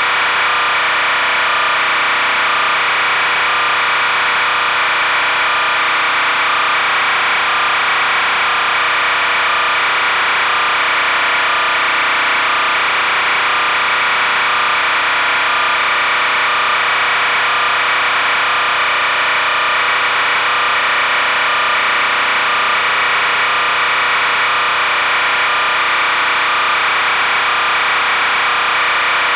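Steady, loud machine noise with a constant hum, unchanging throughout and with no distinct events.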